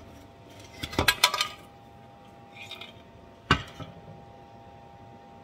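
Metal bread-machine pan turned upside down and knocked against a wooden cutting board to shake the loaf loose: a cluster of knocks and rattles about a second in, then one sharp knock about three and a half seconds in.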